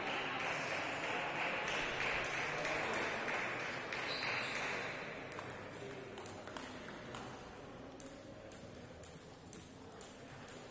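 Table tennis ball clicking sharply off table and bats in a rally, about two hits a second. The hits begin about halfway through and grow clearer near the end, after a steady noise in the first half.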